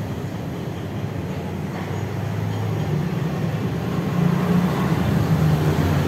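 Low engine rumble that grows gradually louder.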